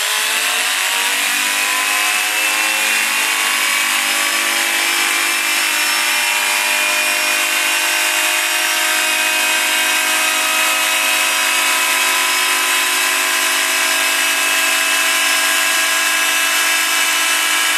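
Arçelik 6 kg washing machine's brushed motor running off the machine, rewired down to about 7,000 rpm with fresh carbon brushes and a polished commutator. Its whine rises in pitch over the first few seconds as it finishes spinning up, then holds steady, with no smoke.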